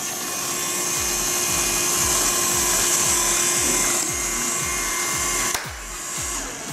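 Small electric motor spinning a robot lawnmower's plastic fan blade, a steady high whine that drops away about five and a half seconds in. Background music with a steady beat plays underneath.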